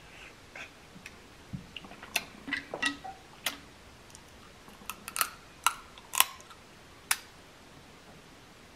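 Boiled crab leg shells being cracked and snapped apart by hand: a scattering of short, sharp cracks and clicks, most of them between about two and seven seconds in.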